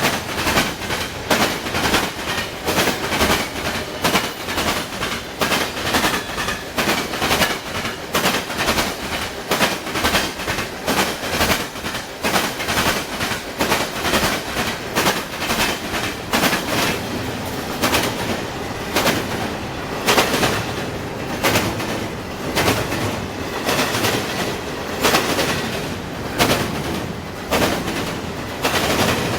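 A train's wheels rolling over a railroad diamond crossing: a continuous run of sharp, loud clacks and bangs, several a second.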